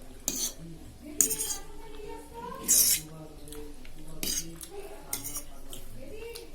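Cutlery scraping and clinking against a plate while eating: several short, sharp scrapes and clinks a second or so apart, the loudest about a second in and just before the three-second mark.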